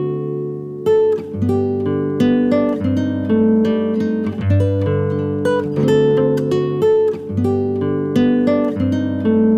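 Background music played on acoustic guitar, plucked and strummed notes in a steady rhythm.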